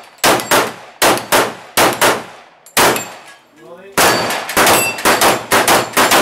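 Handgun fired rapidly at steel falling plates: about fifteen shots in two quick strings with a pause of about a second near the middle, the second string faster, with metallic clangs from the steel plates being hit.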